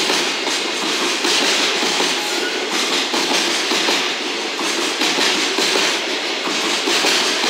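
A JR Freight container train's loaded flat wagons rolling past close by, their wheels running steadily over the rails.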